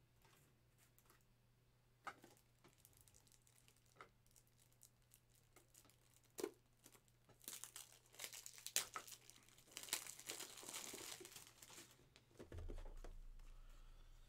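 Faint crinkling and rustling of clear plastic card sleeves and wrapping as a trading card is handled and slid into protection, with scattered small clicks. The crinkling is loudest in the second half, and there is a low thud near the end.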